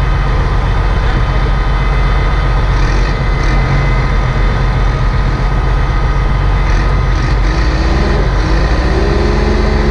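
Heavy diesel vehicle engine running steadily.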